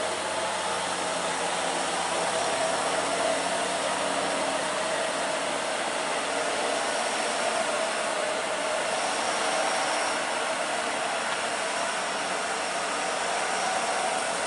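A heavily loaded dump truck's diesel engine running as it crawls slowly up a steep bend. It is heard as a steady rushing noise with a faint hum.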